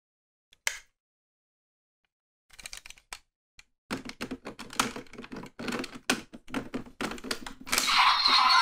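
Plastic clicks and rattles of a DX Desire Driver toy belt being handled while a Raise Buckle is fitted onto it: a single click, a few more about two and a half seconds in, then a run of rapid clicks and clatter from about four seconds in. Near the end the belt's electronic sound effects start playing loudly.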